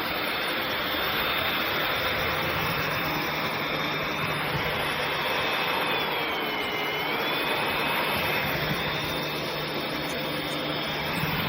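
Cordless stick vacuum running with a steady rush of air and a high motor whine. About two-thirds of the way through, the whine dips in pitch briefly and then comes back up.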